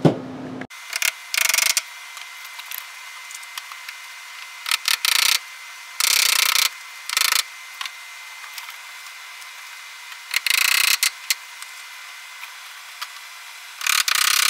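Hammer tapping cable staples over plastic-sheathed Romex electrical cable into wooden rafters, in about half a dozen short bursts of quick blows a few seconds apart.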